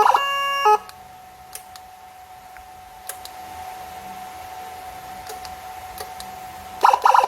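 Landun CJB100DA 100-watt electronic police siren: a stepped two-tone pattern that cuts off just under a second in, then a pause holding only a faint steady tone and a few sharp clicks, then a short burst of fast-chopped tones near the end.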